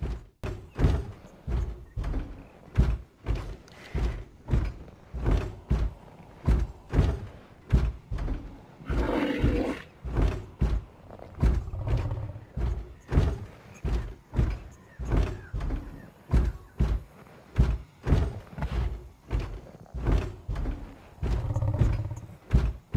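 Rhinoceros sound effect: heavy, regular thudding footsteps about twice a second. A louder call comes about nine seconds in, and low rumbling calls come near twelve seconds and again near the end.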